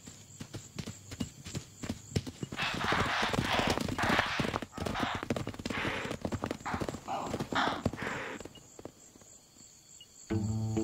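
Hoofbeats of a herd of hoofed prey animals galloping off in a panic, many quick thuds with rushing bursts of noise, dying away about eight and a half seconds in.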